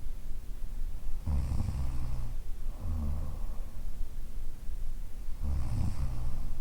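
A woman snoring in her sleep: a long low snore on the in-breath about a second in, a shorter one on the out-breath, and the next in-breath snore starting near the end.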